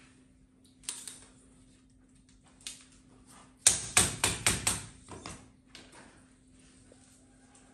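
Rubber spline being tapped into an aluminium insect-screen frame's channel to hold fine PM2.5 screen mesh: a couple of single knocks, then a quick run of about six sharp taps about four seconds in. A faint steady hum runs underneath.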